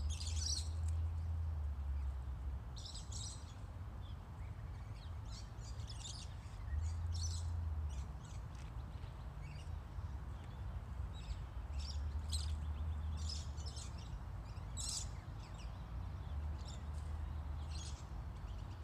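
Birds chirping and calling on and off, with a low rumble that swells and fades four times.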